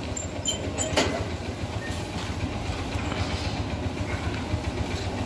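A steady, low, pulsing engine-like rumble, with a few light clicks in the first second.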